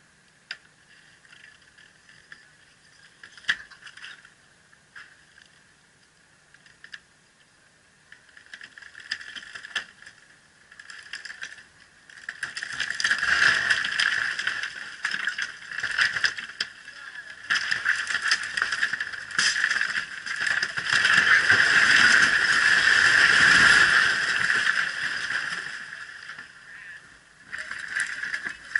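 An old wooden frame building collapsing. A few scattered creaks and cracks come first, then from about twelve seconds in a long stretch of cracking timber and rattling corrugated metal roofing as the structure comes down, easing off a few seconds before the end.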